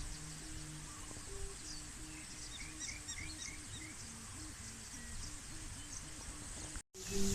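A kite hummer (sanu) with a plastic blade humming in the wind: a low drone that flips between two pitches and then wavers up and down with the gusts. Small birds chirp faintly about halfway through, and the sound breaks off for a moment near the end.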